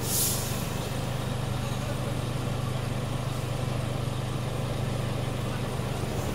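Scania P360 truck's diesel engine idling steadily, heard from inside the cab, with a brief hiss right at the start.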